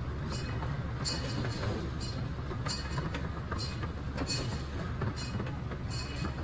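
Miniature zoo train running along its track, heard from aboard: a steady low rumble with sharp metallic clicks from the wheels on the rails, about one a second.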